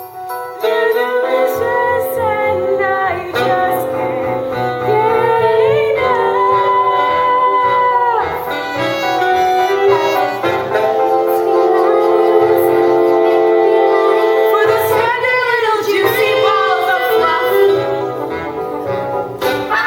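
Children singing a stage-musical song together with instrumental accompaniment, with long held notes.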